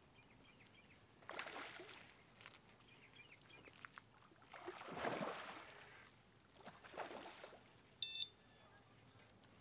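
A hooked carp splashing at the surface in three bursts, the biggest about five seconds in. A little later there is one short, loud high-pitched electronic beep from a bite alarm on the rod pod.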